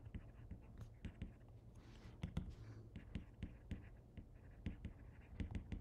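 Faint, irregular light clicks and taps of a stylus tip on a tablet's glass screen while words are handwritten, several taps a second.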